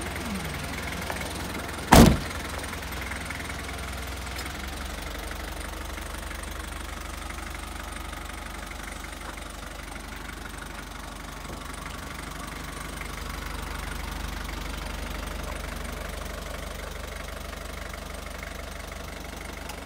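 Isuzu Elf truck's engine idling steadily with a low hum, and a cab door slamming shut once about two seconds in.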